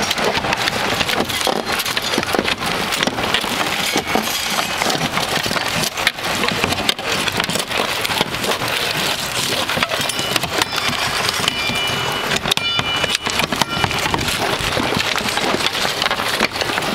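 Old asphalt shingles being torn off a plywood roof deck with roofing shovels: a continuous clatter of scraping and breaking shingles, dense with sharp knocks.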